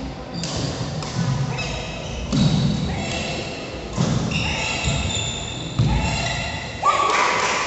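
Badminton rally on a wooden indoor court: sharp racket hits on the shuttlecock about every one and a half to two seconds, with thuds of players' feet on the floor, in a large echoing hall.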